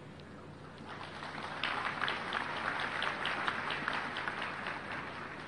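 Large audience applauding, the clapping swelling about a second in and thinning out toward the end.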